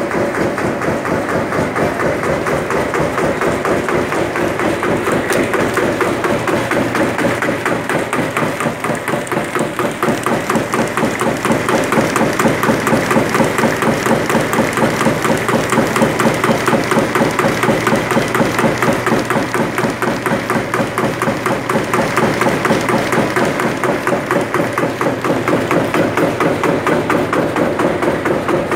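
SREE-60 sawdust briquetting machine running in production, a rapid, even pounding of about four to five strokes a second over a steady motor hum.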